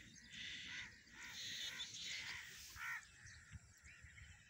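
Crows cawing faintly, a quick run of short calls between about one and three seconds in.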